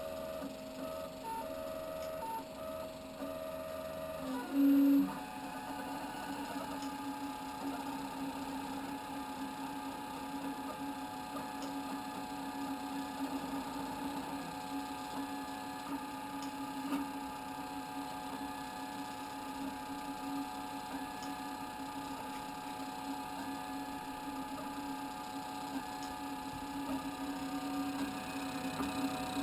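Stepper motors of a homemade 3D printer whining as the print head and gantry move. The steady tones shift in pitch in steps as the moves change speed, with a short louder buzz about five seconds in.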